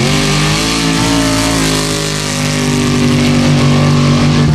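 Formula Offroad sand-drag buggy's engine at full throttle on a drag run, its pitch held high and fairly steady with a slight sag in the middle, then cut off suddenly at the end.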